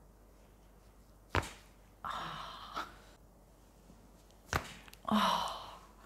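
A woman sighing out twice, slow breathy exhalations as she relaxes for a chiropractic neck adjustment. Two short sharp clicks come between them, about a second and a half in and near the end.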